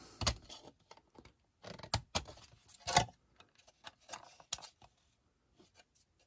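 Plastic model car body being handled and turned over on a workbench: scattered light clicks and taps, with louder knocks about two and three seconds in and faint rustling between.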